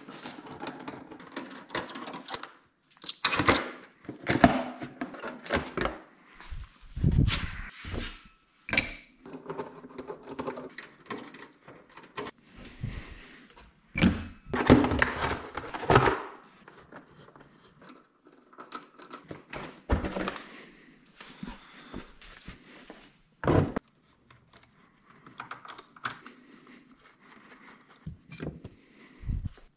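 Workshop handling noises: irregular clicks, knocks and rattles of hand tools and parts being handled while a motorcycle is taken apart. A loud knock and rattle about halfway through comes with a door handle being turned and the door moved.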